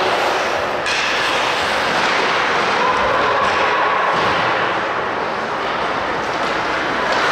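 Ice hockey game sound in a rink: a steady wash of noise from skates on the ice, sticks and the crowd, with no single event standing out.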